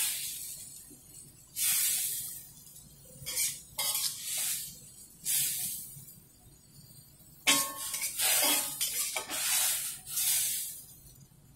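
Metal spatula scraping repeatedly across a metal wok as cooked stir-fried mustard greens are scooped out, about eight scrapes with short pauses between them.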